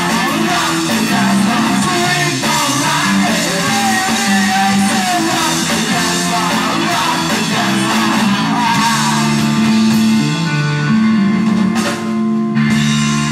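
Live rock band playing: distorted electric guitars, bass and drum kit, with a lead singer over them for most of the stretch.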